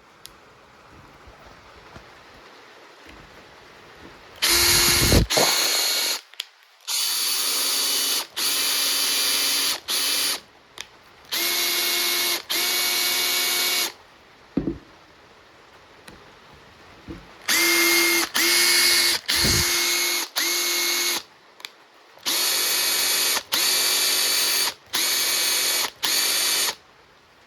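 Makita TP141D 18 V cordless 4-mode impact driver motor running free in about fifteen short trigger pulls of about a second each, with a steady whine whose pitch shifts a little between groups of pulls. A few short knocks fall between the runs.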